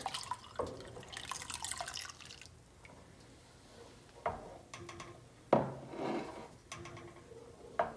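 Vinegar poured from a glass measuring cup into a pot of hot milk, a pouring splash for about the first two and a half seconds. Then a wooden spoon stirs the milk, with a slosh about every second as the milk curdles.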